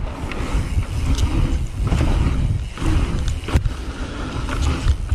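Mountain bike riding along a sandy trail: a steady low rumble of wind on the microphone and tyres on the dirt, with a couple of sharp knocks from the bike.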